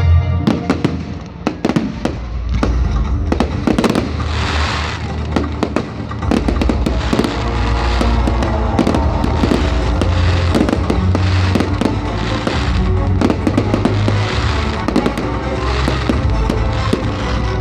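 Fireworks going off in quick succession, sharp bangs and crackles, over loud accompanying music with a heavy bass.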